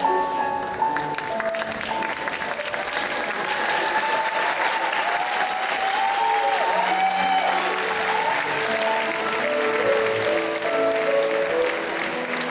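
Audience applauding steadily over Viennese waltz music played through the hall's speakers.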